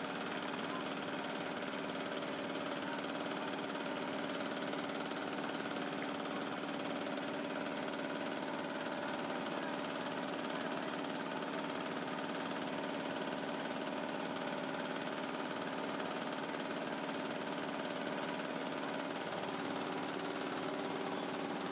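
Motor-driven meat grinder running steadily with an even hum as raw meat is pushed by hand into its hopper and mincing.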